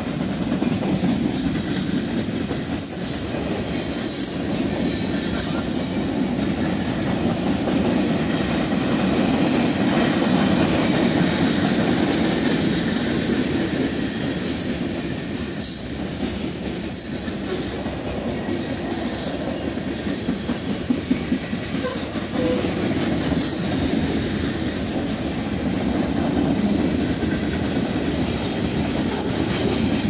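Mixed freight cars of a BNSF manifest train rolling past: a steady rumble of steel wheels on the rails, with a short run of sharp clacks about two-thirds of the way through.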